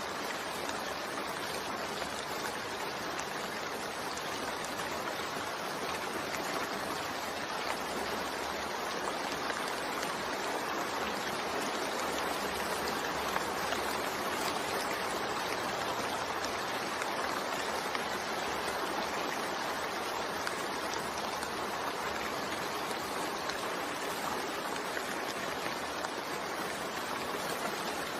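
Steady rain falling, an even hiss that holds without breaks or changes.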